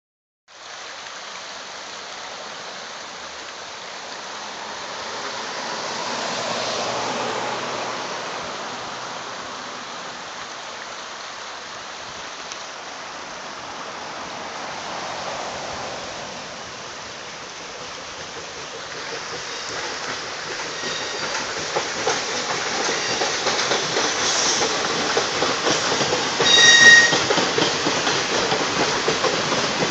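Steam excursion train crossing a stone-arch bridge overhead: a steady rumble of coaches and wheels that builds through the last third as the train arrives. A brief shrill tone rings out near the end, the loudest moment.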